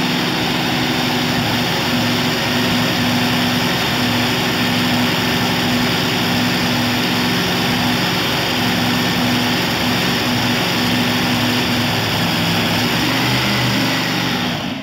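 Supercharged nitromethane-burning V8 of a top fuel dragster running steadily at idle. It is loud and unbroken.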